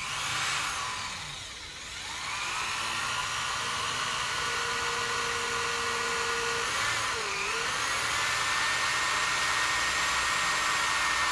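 Corded electric drill running with its bit pressed into hardwood, the motor whine sagging in pitch about a second in and again around seven seconds, then stopping near the end. The bit is barely boring because the drill is set in reverse.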